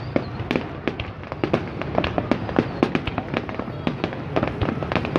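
Fireworks going off in a rapid, irregular series of sharp bangs and crackling pops, several a second, over a steady low rumble.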